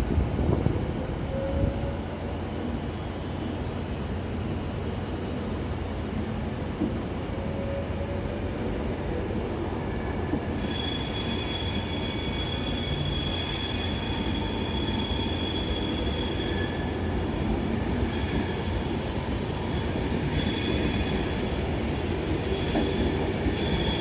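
Class 390 Pendolino electric train pulling out of the station with a steady low rumble; from about ten seconds in its wheels squeal in several high, steady tones.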